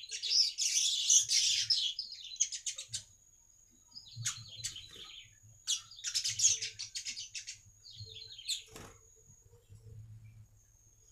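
Manyar weaver bird singing: bursts of fast, buzzy chattering song, loudest in the first three seconds, then shorter bursts with gaps and a quiet last two seconds. A faint steady high tone runs underneath, and a short knock comes about nine seconds in.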